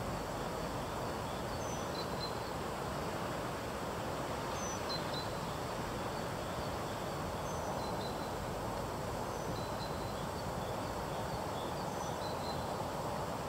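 Steady rush of a fast-flowing, swollen river, with short high bird chirps every second or two.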